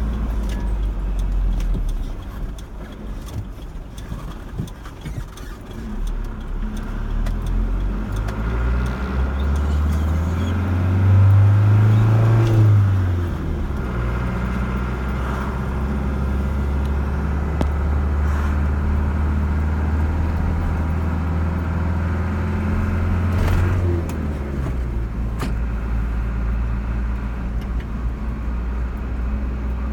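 Car engine and road noise while driving: the engine note rises as the car accelerates about a third of the way in, holds steady, then drops back as it eases off near the end.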